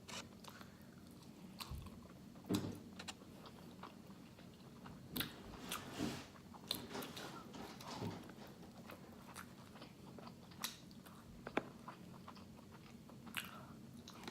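A person biting and chewing fried chicken close to the microphone, with irregular crunches and short clicks.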